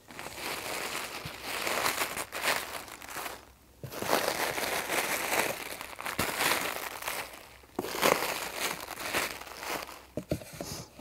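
Plastic bubble wrap crinkling and rustling as it is pulled out of a cardboard shipping box and set down on a table. There is a brief pause about three and a half seconds in.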